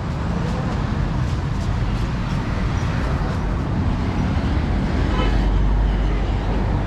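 Steady road traffic noise with a continuous low rumble of vehicle engines, and faint voices about five seconds in.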